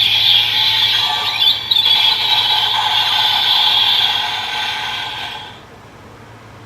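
Electronic sound effect played through the small speaker of a Bandai DX Build Phone toy: a shrill mix of steady tones with a few short pitch sweeps, fading out about five seconds in.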